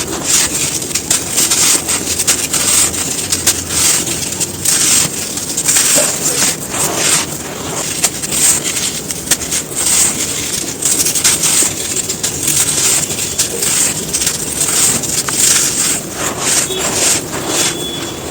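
Dry, crispy chunks of pure sand being crumbled, giving a dense, irregular run of crunches and crackles.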